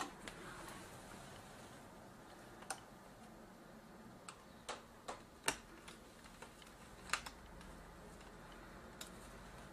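Scattered light clicks and taps, about eight of them at irregular spacing, as fingers handle the laptop's thin wireless antenna cables and press them into the plastic case around the hinge.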